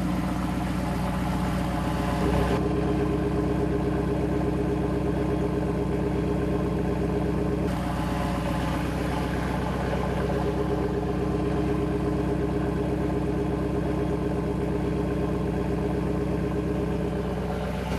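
An electric drill spins the pinion of a 1979 Triumph Spitfire differential on the bench, making a steady motor whir and gear whine. One drum is held still by hand, so the spider gears inside turn and the other axle spins.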